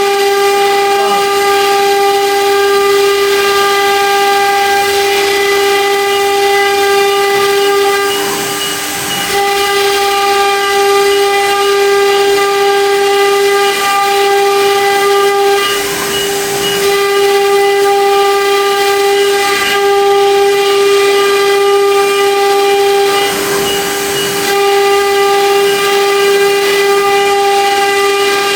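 Spindles of a four-spindle CNC router running at speed while 3D engraving: a steady whine with a ladder of overtones that dips slightly in loudness a few times.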